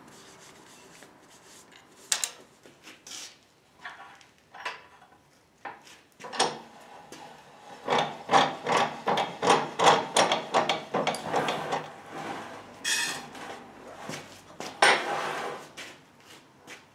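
A cloth rag rubbing and wiping down a cast-iron Wilton WS8 bench vise. There are a few scattered strokes at first, then a run of quick scrubbing strokes in the middle, and two longer swipes near the end.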